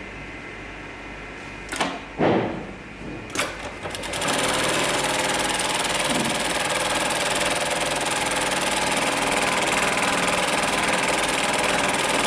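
HIGHTEX MLK500-2516 direct-drive programmable pattern sewing machine: a few short knocks about two seconds in, then from about four seconds in it sews steadily at speed.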